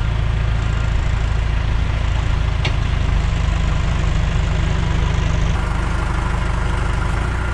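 Tractor loader backhoe's diesel engine running steadily with a fast, even firing pulse, and a single sharp click a little under three seconds in.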